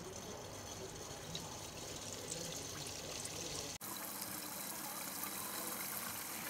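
Spring rolls deep-frying in hot oil in a stainless steel pot: a steady sizzle and bubbling, with a brief break a little under four seconds in.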